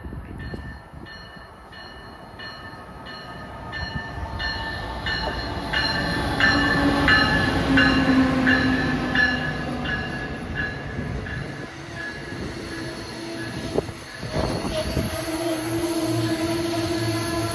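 Amtrak ACS-64 electric locomotive and Amfleet passenger cars passing at speed, loudest as the locomotive goes by. A bell rings about twice a second as the train approaches, and a steady wheel squeal sets in near the end.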